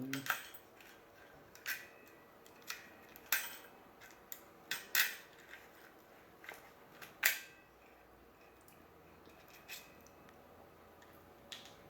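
Small metal clicks and clinks as the bolt and spring of an airsoft Mosin Nagant are handled and worked apart by hand: about a dozen scattered sharp clicks, most of them in the first seven seconds and fewer after.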